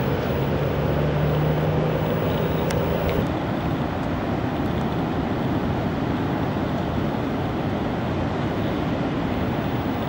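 Steady ocean surf and wind noise, with a low engine hum in the first three seconds or so that then stops.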